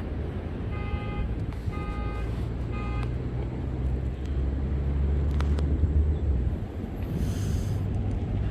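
Steady low rumble of surf breaking on the reef, with wind on the microphone. Three short beeps about a second apart sound near the start, and a low vehicle engine drone swells through the middle and drops away before the end.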